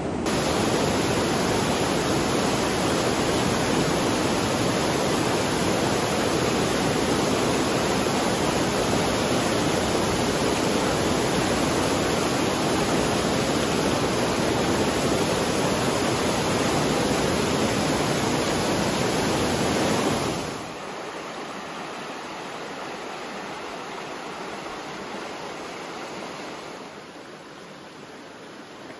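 Waterfall pouring into a rocky pool, a steady loud rush of water. About two-thirds of the way through it drops to a quieter, even flow of a shallow creek running over rocks.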